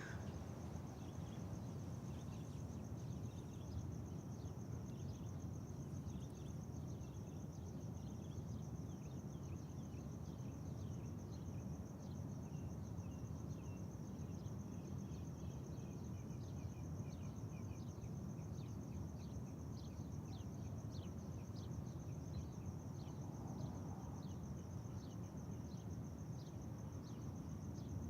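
Early-morning neighbourhood ambience: a steady low rumble under a continuous high, fast-pulsing insect trill, with birds chirping in quick short notes.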